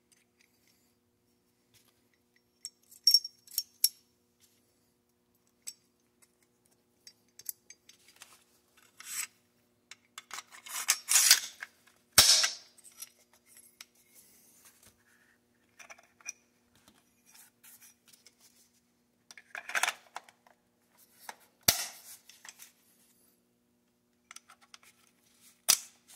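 Brownells BRN Proto AR-15 rifle being reassembled by hand: scattered metal clicks and scrapes as the bolt carrier group is put together and slid into the upper receiver, with three sharp metallic snaps about twelve, twenty-two and twenty-six seconds in.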